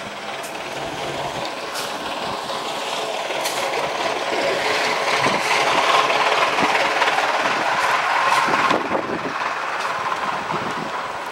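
Bicycle rolling over a rough dirt street, with tyre noise and clicking, rattling jolts. It grows louder through the middle and drops off sharply near the end.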